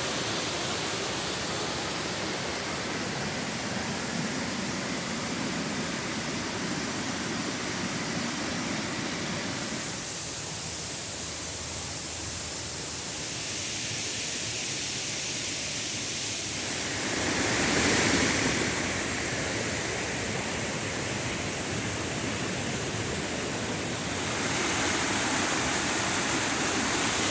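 Waterfall: a steady rush of falling water, its tone shifting a few times, with a brief swell about two-thirds through.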